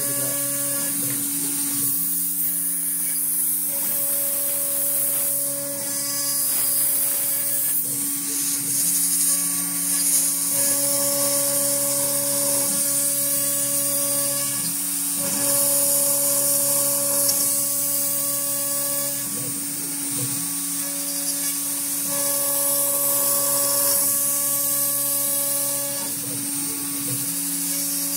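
CNC router spindle running at high speed as its end mill cuts slots into a wooden board. A steady hum and high hiss run under a machine whine that changes pitch and stops and starts every second or two as the cutter changes direction.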